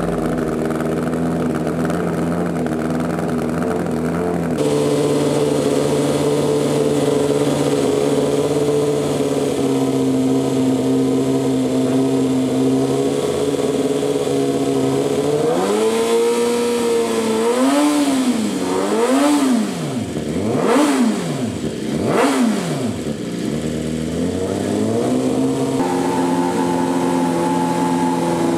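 BMW M1000RR inline-four with an Austin Racing titanium full exhaust system idling steadily, then blipped three times in quick succession about two-thirds of the way in, each rev rising and falling back, before settling to idle again.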